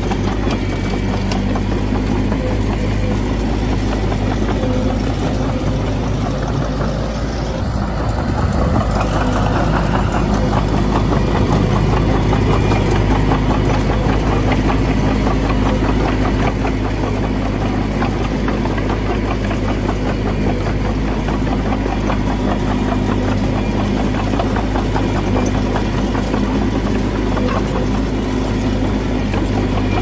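Heavy diesel earthmoving engine, likely the bulldozer, running steadily throughout, with a brief change in its sound about eight seconds in.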